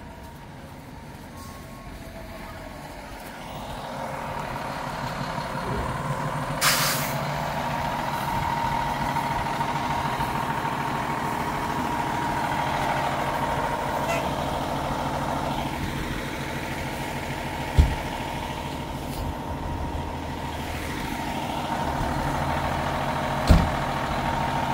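Heavy truck's engine running close by, growing louder about four seconds in, with a steady high whine underneath. A short sharp hiss of air brakes comes about seven seconds in, and two single thumps follow later.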